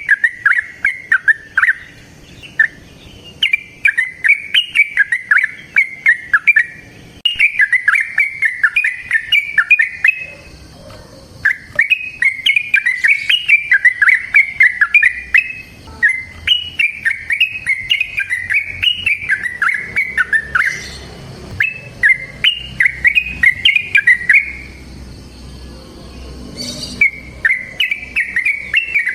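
Yellow-vented bulbul singing its long, rapid bubbling song in repeated runs of a few seconds each, with short pauses between them.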